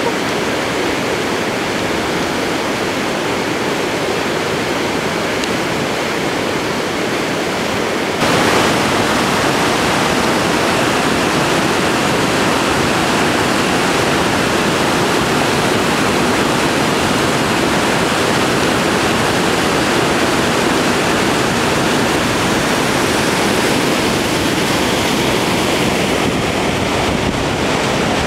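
Fast mountain river rushing over rocks: a loud, steady rush of water that gets louder about eight seconds in.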